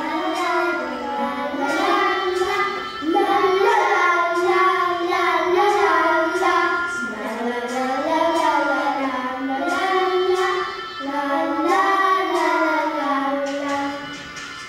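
Young children singing a song together in high voices, the melody moving in short phrases; the singing stops near the end.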